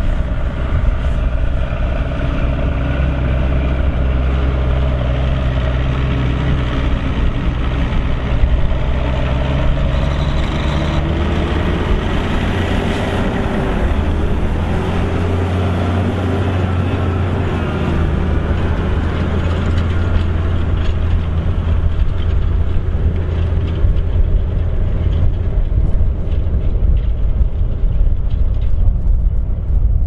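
TerraGator 3244 self-propelled slurry tanker's diesel engine running steadily under load as it drives across the field injecting slurry; the engine's note shifts about halfway through.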